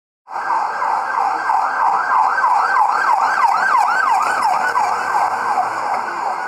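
Emergency vehicle siren on a fast yelp, rapid rising sweeps about four a second. It cuts in abruptly and grows less distinct and slightly quieter near the end.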